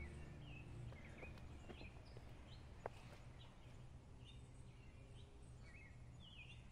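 Faint birdsong ambience: small birds chirping now and then over a low steady rumble, with one brief tick about three seconds in.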